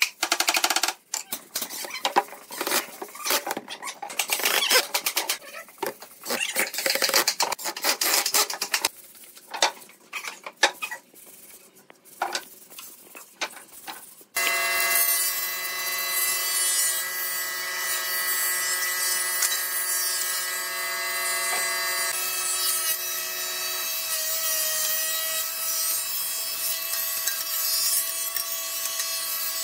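A steel hammer tapping the joints of a glued wooden frame in quick, irregular knocks. About halfway through, the sound gives way suddenly to a thickness planer running steadily with a board feeding through it, a steady machine whine of several tones.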